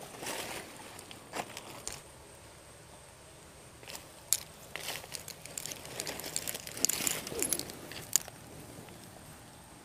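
Rustling and crinkling handling sounds with scattered sharp clicks and crackles, as a mushroom forager works. The sharpest click comes about four seconds in, and the rustling is busiest from then until about eight seconds in.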